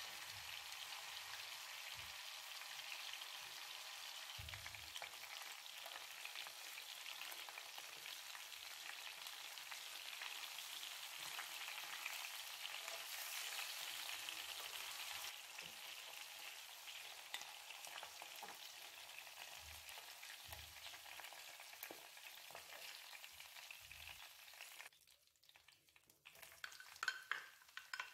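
Chicken drumsticks frying in oil in a pan: a steady sizzle, with a few low knocks as they are turned with tongs. Near the end the sizzle drops away and a few sharp clicks follow as sliced onion is tipped in from a bowl with a wooden spoon.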